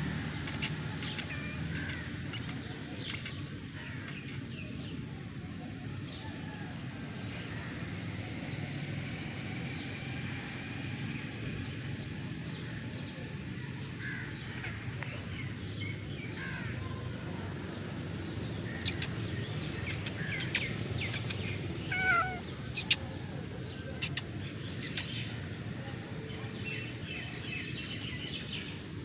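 Outdoor birdsong: small birds chirping on and off and a crow cawing, over a steady low background rumble. One short, louder call stands out about two-thirds of the way through.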